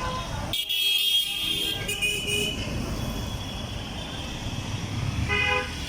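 Busy street traffic, with vehicle horns sounding in short blasts: a couple about two seconds in and another near the end.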